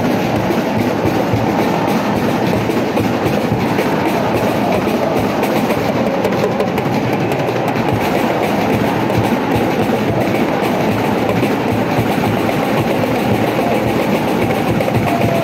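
Large crowd of school basketball supporters cheering and chanting together, a loud, steady wall of voices filling a packed indoor gym.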